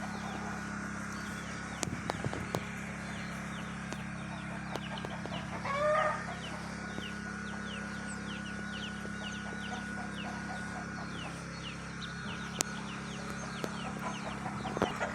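Birds calling: many short chirps repeat throughout, with one louder pitched call about six seconds in, over a steady low hum.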